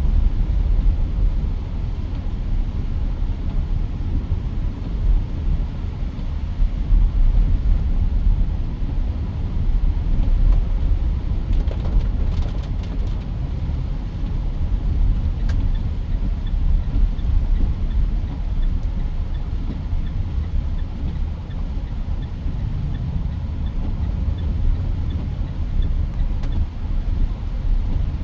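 Steady low rumble of road and engine noise inside a moving Mitsubishi Pajero Sport's cabin, with a faint regular ticking during the second half.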